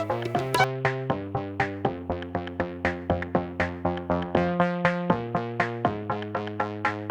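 Electronic music: a quick, even run of plucked synthesizer notes, about five a second, over a steady beat.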